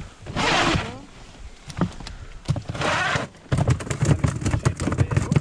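Handling noise in a small plastic boat: two short rushing noises, then a quick run of knocks and clatter as gear is moved about.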